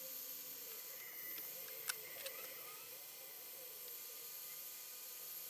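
Hot-air rework station blowing with a steady hiss while desoldering a power socket from a circuit board, with two small clicks about two seconds in.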